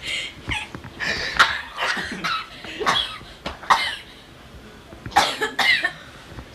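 A boy coughing repeatedly in short bursts, pausing about four seconds in, then coughing twice more.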